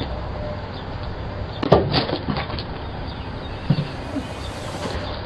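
A sharp crack and clatter of something knocking or breaking about two seconds in, and a smaller knock near four seconds, over the steady hiss of a doorbell camera's microphone.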